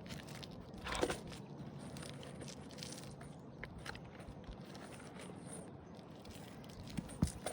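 Quiet scraping and crunching of asphalt shingles being handled and slid into position on a roof, with a few light clicks near the end.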